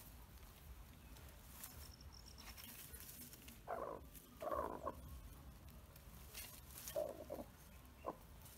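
A brooding white Muscovy duck hen on a nest of eggs gives a few short, soft, low calls in the second half, about four in all, with faint rustling around them.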